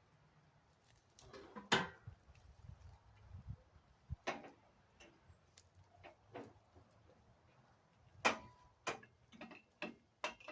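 Irregular metallic clicks and knocks of parts and tools being handled while new shock absorbers are tried on a go-kart frame. The two loudest knocks come about two seconds in and about eight seconds in, some with a short ring.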